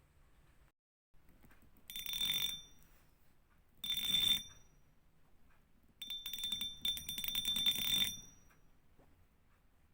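Fishing reel drag clicking rapidly with a ringing metallic tone as line is pulled off the spool, in three runs: two short ones about two seconds apart, then a longer one of about two seconds.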